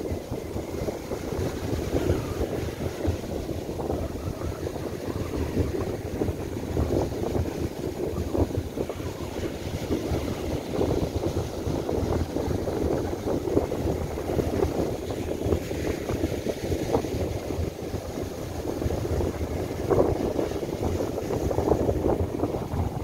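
Near-gale wind gusting and buffeting the microphone, with surf breaking on a sandy beach underneath.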